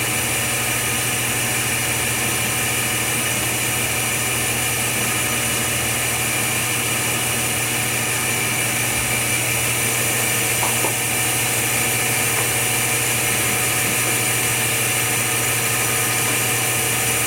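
Steady machine hum with an even hiss, like fans or a motor running continuously, with one faint click about eleven seconds in.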